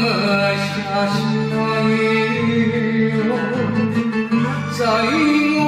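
Enka karaoke backing track: a guitar plays the melody over steady bass notes and accompaniment.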